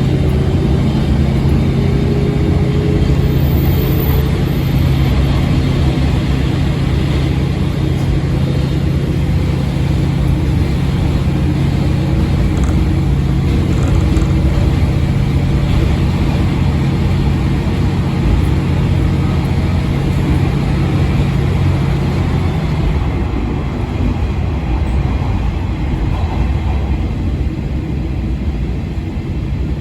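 Diesel railcar of the JR Shikoku KiHa 40/47 series running under power, its engine drone steady with faint rising tones early on. About 23 seconds in, the steady engine note drops away and the level falls slightly, leaving a lower running rumble as the engine throttles back.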